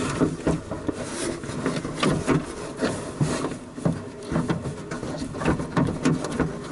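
Hands working inside a car door while fitting a door lock actuator and its lock rods: irregular scraping, rubbing and light clicks and knocks of metal and plastic parts.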